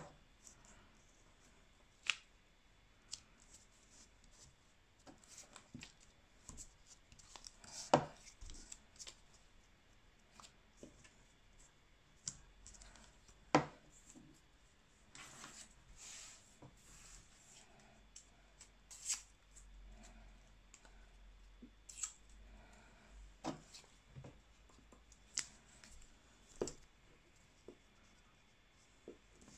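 Paper handling: small pieces of torn paper rustled and pressed down onto a glued sheet, with scattered light taps and clicks and a few brief rustles.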